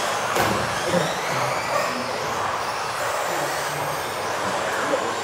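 Several 1:10 electric RC off-road buggies racing, their brushless motors giving faint high whines that rise and fall in pitch over a steady noisy background in a large indoor hall.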